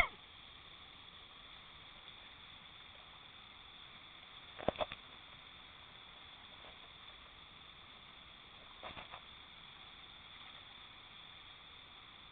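Faint steady rush of whitewater rapids, with two short clusters of quick clicks about four and a half and nine seconds in.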